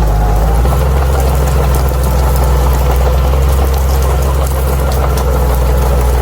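Crawler bulldozer's diesel engine running steadily at an even pitch, with a faint high whine and light scattered clicking over it.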